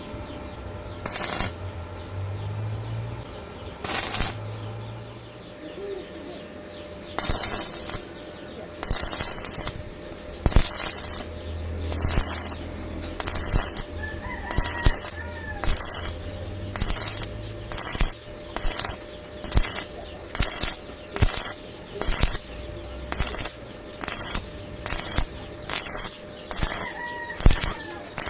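A welding arc struck in short repeated bursts, as in stitch or tack welding. Each burst is a crackling hiss about half a second long. After two spaced bursts at the start they come closer together, ending at roughly one a second.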